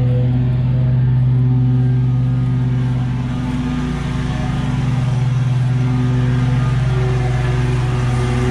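Lawn mower engine running steadily at full throttle, a constant even hum that eases slightly a few seconds in.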